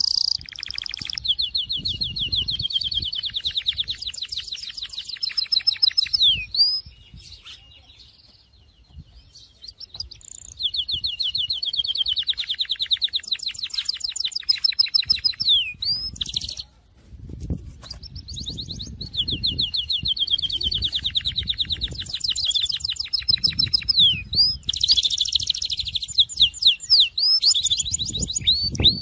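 A Syrian canary singing long rolling trills of rapid repeated notes, in several phrases broken by short pauses. Quick rising and falling sweeps come between the phrases.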